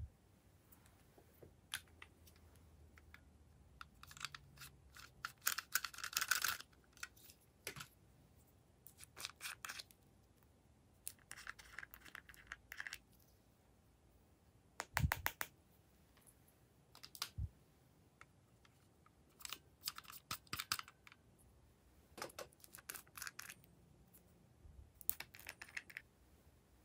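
Small plastic glitter cases being handled and tapped as glitter and sequins are shaken out into a tray: scattered light clicks, taps and short rustling bursts, with a quick run of several clicks about halfway through.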